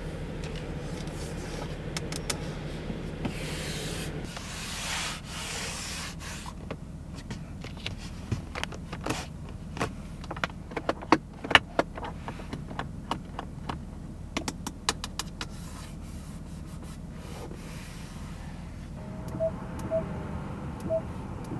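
Fingertips and nails rubbing and tapping the leather-and-wood dashboard and controls of a Genesis G90's cabin, giving a string of sharp clicks and taps after a low steady hum that stops about four seconds in. Near the end a run of short, evenly spaced electronic beeps comes in as the climate-control touch panel is pressed.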